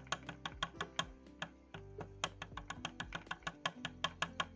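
Background music with a fast, even clicking beat, about five to six sharp clicks a second.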